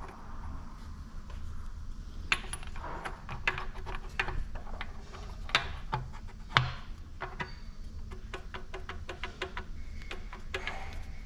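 Light metallic clicks and clinks of engine parts and tools being handled against an engine block, scattered irregularly from about two seconds in until near the end, with one sharper knock just past the middle. A low, steady background hum runs underneath.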